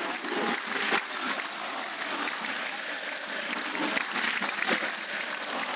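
Football stadium crowd applauding, a dense spread of many handclaps.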